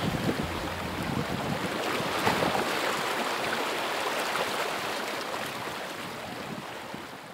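Wind and the rush of breaking waves and water past a small sailboat under way in a rough sea, with wind on the microphone; it fades out over the last couple of seconds.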